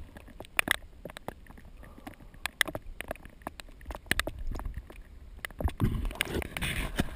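Sea water lapping and splashing against a GoPro's waterproof housing at the surface, with many irregular sharp taps and a denser spell of splashing about six seconds in.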